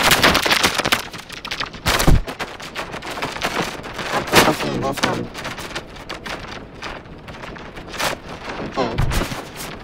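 Dense, irregular crackling and clicking, with a few short snatches of voice.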